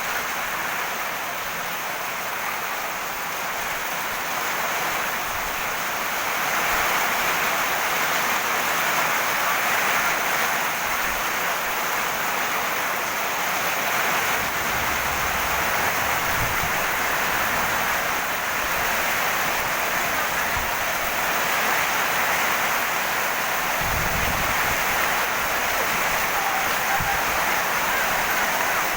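Steady rain falling on a garden, an even hiss, with a few brief low thumps partway through and again later.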